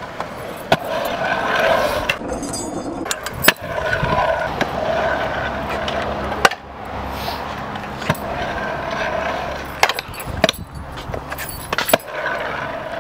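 Freestyle scooter wheels rolling on a concrete skatepark bowl, the roar swelling and fading as the rider carves, with several sharp clacks from the scooter hitting the concrete.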